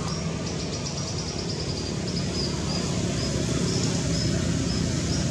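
Outdoor ambience: a steady low rumble like distant traffic, with short high-pitched chirps repeating throughout.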